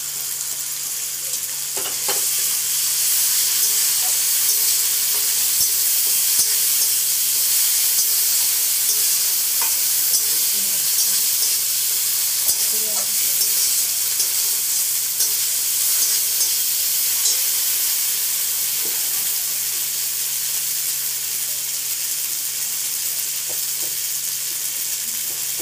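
Onions and freshly added ginger, cumin and chilli paste sizzling in hot oil in a metal kadai while a spatula stirs and scrapes the pan. The masala is being fried down. The sizzle gets louder about two seconds in.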